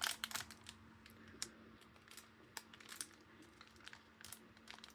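Foil wrapper of a Magic: The Gathering booster pack crinkling faintly as it is worked and torn open by hand. The crackles are denser in the first second and then come only now and then.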